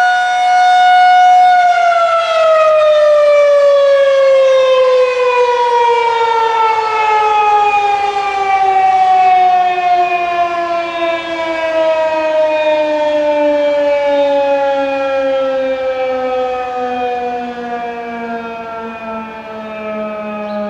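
Federal Signal 2001-130 electromechanical warning siren holding a steady tone, then winding down about a second and a half in, its pitch falling slowly and evenly as the rotor coasts down at the end of the test signal.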